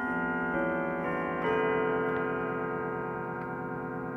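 1981 Howard Miller grandfather clock's chime hammers striking its chime rods: notes about every half second, the last of the melody about one and a half seconds in, left ringing and slowly fading. The movement ticks underneath.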